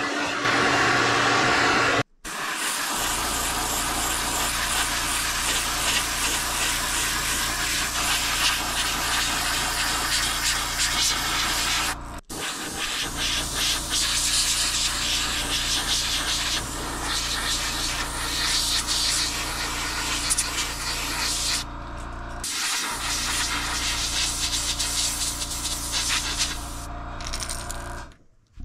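Airbrush spraying thinned fluorescent orange paint onto a crankbait lure: a steady hiss of air and paint over the low, even hum of the air compressor. It comes in several stretches that break off abruptly. The first couple of seconds are a heat gun blowing as it heat-sets the previous coat.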